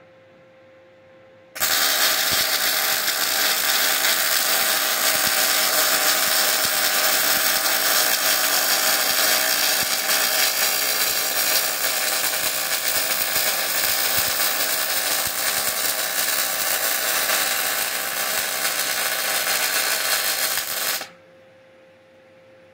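Electric arc welding at high current on thick steel: the arc's steady, crackling buzz starts abruptly about a second and a half in, runs without a break, and cuts off near the end.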